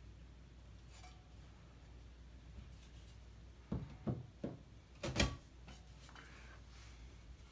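Three light knocks, then a louder clatter about five seconds in, from a metal drywall knife being handled against the wall over fibreglass mesh tape.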